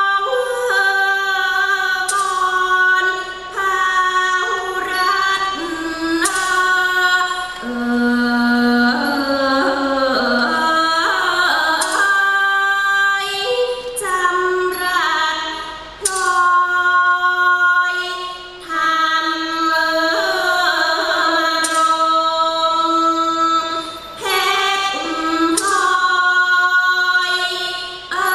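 A woman singing a Thai classical song in long, ornamented held notes, with sparse accompaniment and occasional light strikes.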